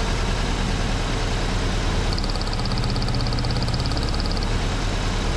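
Four-cylinder car engine idling roughly with spark plug lead number 2 pulled, running on three cylinders. The change in the idle shows that lead is delivering spark. A fast, high-pitched ticking comes in about two seconds in and stops near the end.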